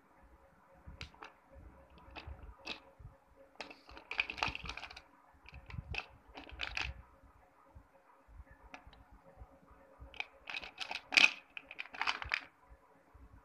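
Wet slate pencils and slate bars clacking against each other and the steel plate as a hand stirs and picks through the pile: irregular clusters of clicks with short pauses, busiest about four seconds in and again near the end.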